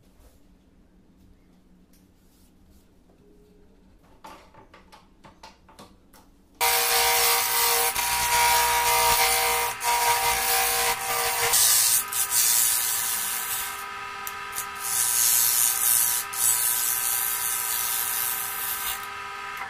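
A few faint clicks, then, about a third of the way in, a chisel cutting wood on a running wood lathe begins abruptly: a loud, steady hiss of shavings peeling off the spinning segmented rosewood-and-maple vase blank, over the even whine of the lathe. The tone shifts a little partway through as the cut moves along the blank.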